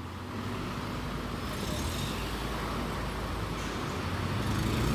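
Road traffic: cars driving past in a steady rush of noise that grows gradually louder toward the end as a vehicle comes closer.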